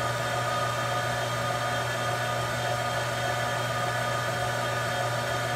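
Vacuum casting machine's pump running with a steady hum and hiss, holding vacuum on the investment flask while molten bronze is poured in.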